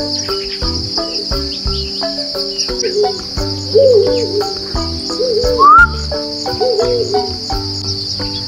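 Steady high-pitched chorus of insects trilling, over background music with plucked notes and a low beat. A few short arching calls cut through, with the loudest about four seconds in and a sharp rising whistle just before six seconds.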